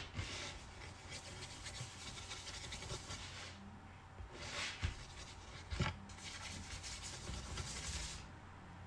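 Wet paintbrush being brushed across paper to wet it for a watercolour wash, a soft scratchy rubbing that comes in strokes. Two light knocks near the middle, about a second apart.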